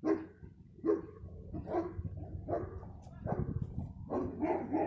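A dog barking repeatedly, about one bark a second, the barks coming a little faster near the end.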